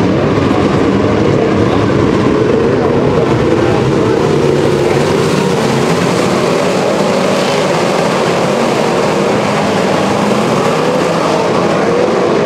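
A pack of winged dirt-track sprint cars racing, their V8 engines running together in a loud, steady drone. Many engine pitches waver up and down as the cars lift and accelerate through the turns.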